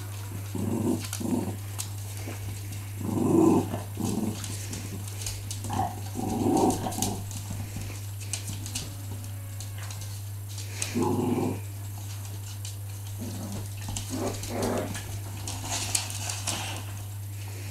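Small dogs play-growling in short, rough bursts while they wrestle, half a dozen or so spread irregularly, over a steady low hum.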